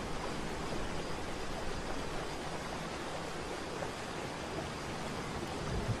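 Waterfall: steady rushing of falling water.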